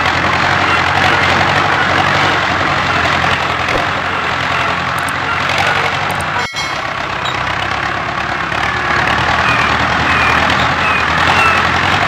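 A heavy vehicle engine, such as a tractor's, running steadily. The sound breaks off for a moment a little past halfway.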